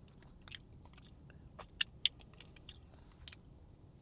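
Lip smacks and small mouth clicks of someone tasting sauce licked off a finger, with two sharp clicks just under two seconds in.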